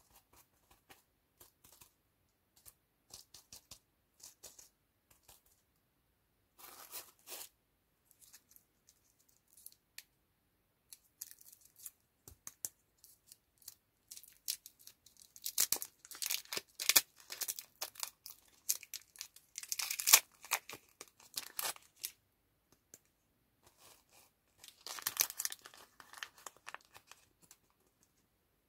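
Lollipop wrappers of printed paper and clear plastic film being peeled and torn open by hand, crinkling and crackling in short spells with quiet pauses between, loudest about halfway through.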